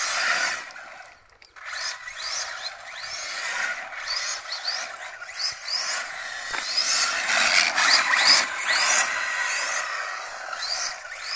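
Electric 1/7-scale RC car's brushless motor whining up in short rising bursts as it accelerates again and again while being driven around, over a steady hiss.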